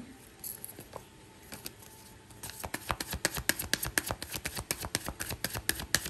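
A deck of oracle cards being shuffled by hand: a run of quick soft card clicks and slaps, scattered at first and coming thick and fast from about two and a half seconds in.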